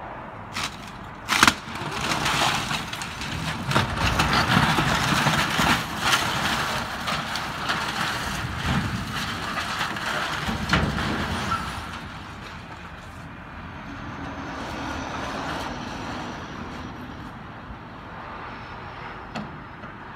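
Tracked excavator demolishing a house: two sharp cracks in the first couple of seconds, then about ten seconds of the bucket breaking through the wall, with cracking and debris crashing down. The crashing dies away about twelve seconds in, leaving the excavator's engine running.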